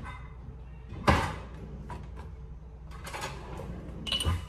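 Kitchen handling sounds: a sharp knock about a second in, then two more knocks around three and four seconds in as a kitchen cabinet is handled.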